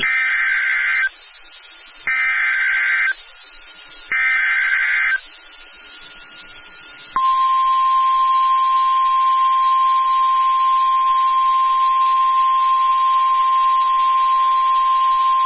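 Emergency Alert System SAME header: three short bursts of digital data screech, each about a second long and a second apart, encoding a severe thunderstorm warning. About seven seconds in, the single steady NOAA Weather Radio warning alarm tone starts and holds.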